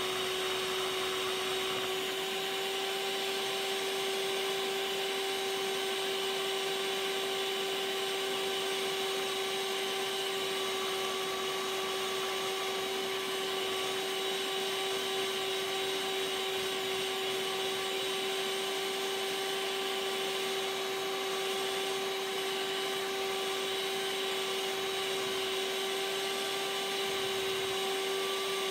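Electric hand mixer running at one steady speed, its motor giving a constant, even whine as the beater whips thickened body butter.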